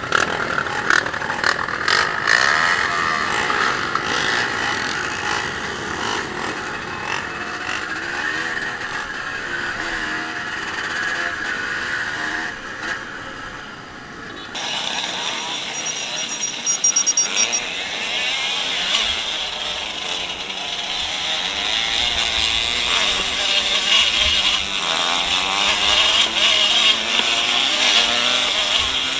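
Off-road motorcycle engine running on a trail ride, its pitch rising and falling with the throttle. The sound changes abruptly about halfway through.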